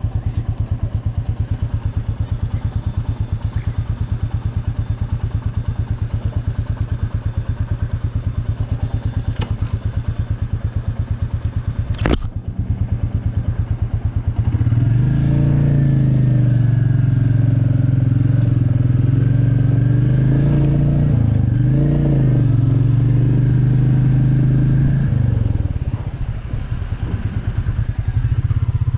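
Royal Enfield Meteor 350's single-cylinder engine idling with an even beat, then a sharp click about twelve seconds in. From about fourteen seconds the engine pulls away louder and higher, its pitch rising and falling with the throttle, and it dips briefly near the end before picking up again.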